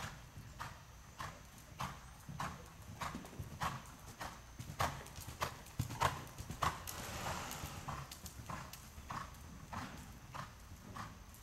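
Horse trotting on the soft sand footing of an indoor riding arena: steady hoofbeats about every 0.6 seconds, loudest as the horse passes close about six seconds in.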